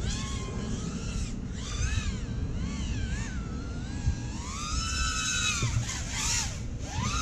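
Five-inch FPV quadcopter's brushless motors (HGLRC 2207.5, 1900KV) whining, the pitch swooping up and down again and again as the throttle changes through the manoeuvres, with the longest, highest swell about two-thirds of the way through. A low wind rumble runs underneath.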